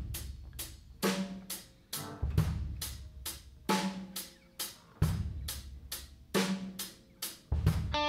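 Drum kit playing alone, a steady beat of bass drum, snare and cymbal hits, about three strikes a second.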